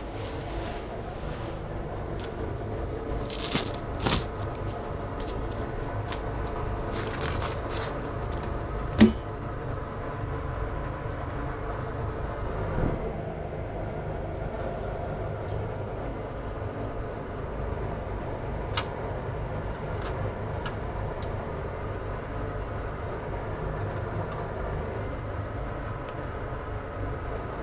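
Steady mechanical hum, with a few sharp clicks and knocks now and then, the loudest about nine seconds in.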